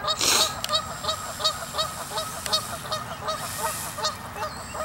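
Geese honking in a steady series, about three or four calls a second, with a brief hiss-like burst just after the start.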